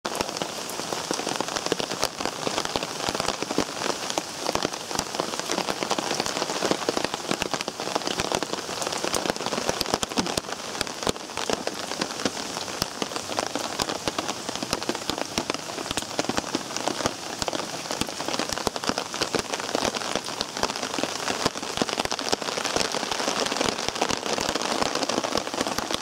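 Steady heavy rain from an approaching typhoon, with many close drops hitting.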